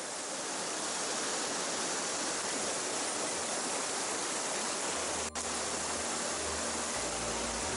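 Mountain stream rushing: a steady noise of flowing water. About five seconds in there is a brief dropout, and after it a low rumble sits under the water noise.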